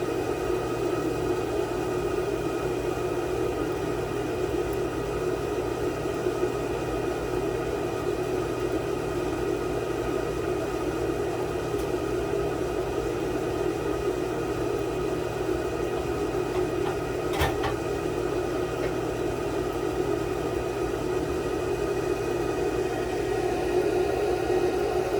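A repair machine running with a steady electric hum and fan noise, holding several tones without change, with one short click about 17 seconds in.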